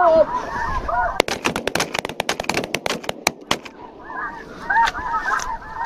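A rapid string of shotgun blasts, many shots packed into about two and a half seconds, fired into a flock of snow geese. The geese call before and after the shooting.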